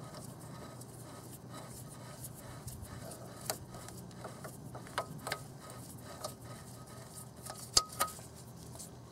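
Faint scattered clicks and light taps of a gloved hand unscrewing the GM front-axle thermal linear actuator (front 4WD actuator) from the axle housing, with a sharper pair of clicks near the end.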